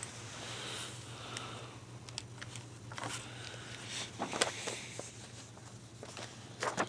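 Comic books being handled: scattered rustling, light taps and clicks of paper and covers being moved, over a steady low hum.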